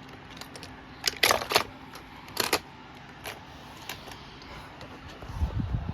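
Small die-cast toy cars and track pieces being handled: a cluster of sharp clicks and clatter about a second in, another sharp click around two and a half seconds, scattered light ticks, and a low rumble near the end.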